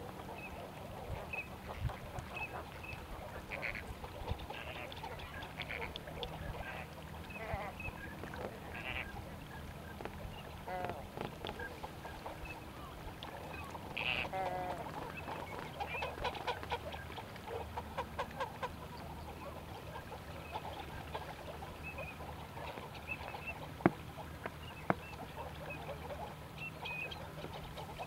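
A flock of Chilean flamingos and ducks calling on the water: a steady run of goose-like honks and chattering calls, with a few higher chirps, over a faint low hum. Two sharp clicks stand out near the end.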